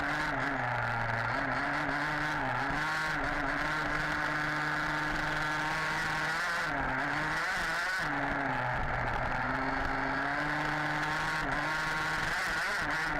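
HPI Baja 5B RC buggy's small two-stroke petrol engine running hard through a lap, its pitch rising and falling with the throttle. It drops off briefly about halfway through before picking up again.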